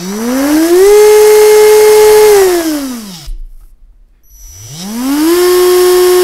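Rebuilt CrawlMaster Sport brushed RC motor spinning up on throttle with a rising whine, holding speed, then winding down about three seconds in. A second later it spins up again the other way, in reverse, and holds a slightly lower pitch. The faster, higher-pitched forward run shows the 12 degrees of timing advance is set for forward rotation.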